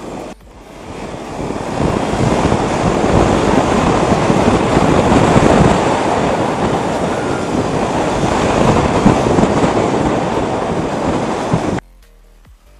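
A KTM RC 200 motorcycle on the move, heard mostly as wind rushing and buffeting over the microphone. The rushing builds over the first couple of seconds, holds steady, and cuts off suddenly near the end.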